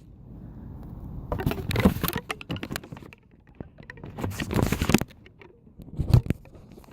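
Handling noise on a phone microphone: rustling, crinkling and scraping in a few bursts as the phone is handled and strapped in place with a rubber band.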